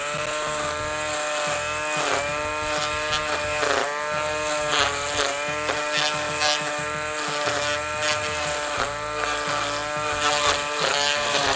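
Ryobi string trimmer running in trim mode: a steady whine that rises as it spins up at the start. Its pitch dips briefly several times as the line bites into grass, and it winds down at the end.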